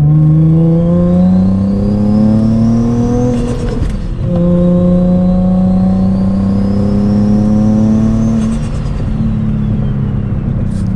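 Turbocharged Infiniti G35's V6 engine accelerating under light throttle through the gears: it climbs in pitch, breaks for a gear change about four seconds in, then climbs again more slowly and settles. A faint turbo whistle rises with each pull and winds down after the second.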